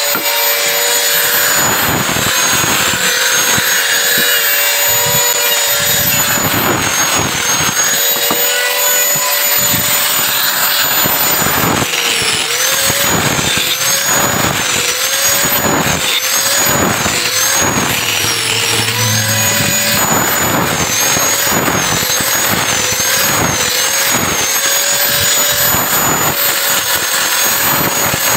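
Electric angle grinder fitted with a sanding disc, running with a steady high whine and sanding wood. Through the middle its pitch dips and recovers again and again as the disc is pressed into the wood.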